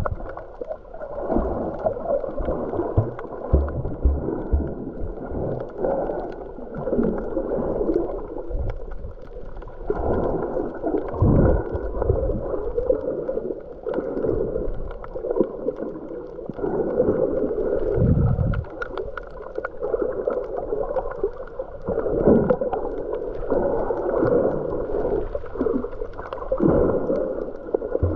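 Muffled water sloshing and gurgling around a camera in the sea while snorkeling, with occasional low thuds.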